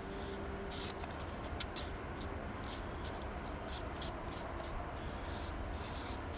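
Irregular short scraping and rubbing of a tool or stick working two-part JB Weld epoxy, over a steady low background rumble.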